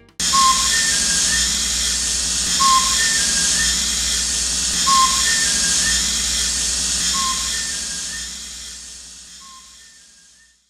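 Tankbot toy robot tank playing its electronic tank sound effect: a steady hissing rumble with a short beeping chirp about every two seconds. It fades out near the end.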